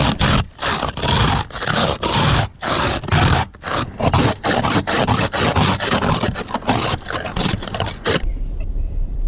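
Scraping snow and ice off a car, in repeated strokes about twice a second that stop abruptly near the end.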